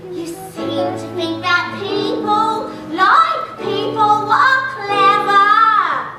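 Live musical-theatre song: a woman singing over the accompaniment, holding a long note near the end that slides down in pitch.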